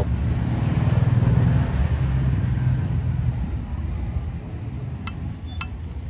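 Low rumble of a passing motor vehicle, swelling about a second in and easing off after about three seconds, with two sharp clicks near the end.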